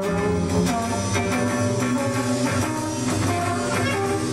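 Jazz group playing live: two horns on the melody over drums, with a steady held bass line underneath and regular drum strikes.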